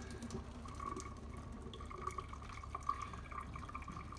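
Hot cooking water trickling and dripping from a bowl of boiled gnocchi through a coffee cup used as a strainer, into a stainless-steel sink. The trickle runs steadily with small irregular drips.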